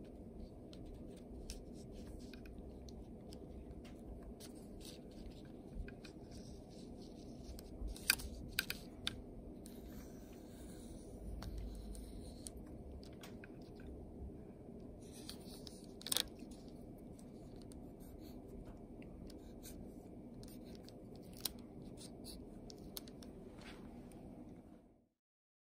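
Pencil tapping dots and scratching lines on paper, with small clicks and taps as a metal-cased compass is picked up and set down on the board, over a steady low hum. The sound cuts off suddenly near the end.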